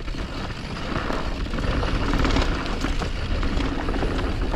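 Mountain bike descending a dirt downhill trail: wind buffeting the helmet-camera microphone with a heavy rumble, over the noise of tyres on dirt and small knocks and rattles from the bike.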